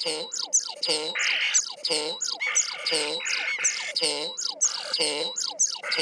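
Common starling singing inside a nest box, which amplifies the song. It is a dense stream of mimicked and own sounds, with rattles, squeaks and falling whistles, several at once, and a similar phrase comes back about once a second.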